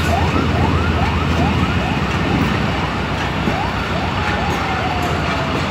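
Pakistan Railways passenger coaches rolling past on departure: a steady rumble from the wheels on the track, with repeated short rising metallic squeals from the running gear, about two a second at first and then more irregular, and one longer, slowly falling squeal near the end.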